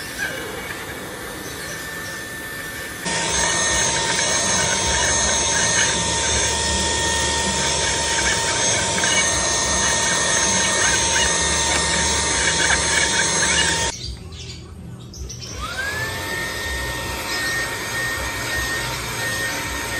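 Cordless handheld vacuum cleaner running with a steady high whine as its nozzle is worked over a dusty pleated air-purifier filter. It gets louder about three seconds in, stops about fourteen seconds in, then starts up again with a rising whine and runs steadily.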